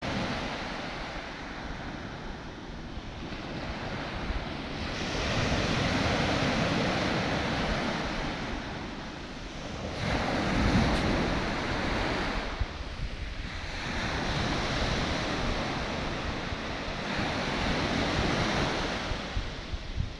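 Small sea waves breaking and washing up a sandy beach. The surf swells and falls back about every four seconds.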